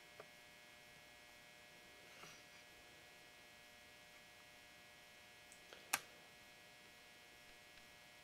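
Near silence: a faint steady hum, with one sharp click about six seconds in and a few softer clicks.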